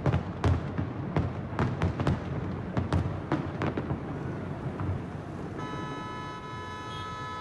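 Fireworks going off: sharp bangs and pops, several a second, thinning out after about four seconds. Near the end a steady multi-toned hum comes in.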